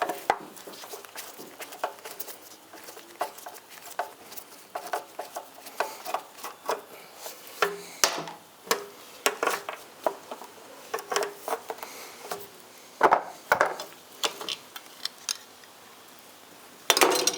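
Hand tools working small fasteners off a motorcycle license plate bracket. A socket is held on each nut while the bolts are spun out with a screwdriver, giving irregular light metallic clicks, taps and clinks, a few of them louder.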